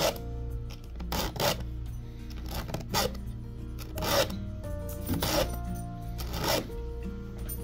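Round file rasping across the cutter teeth of a mini chainsaw chain in short strokes, about six of them a little over a second apart, sharpening the chain. Background music plays underneath.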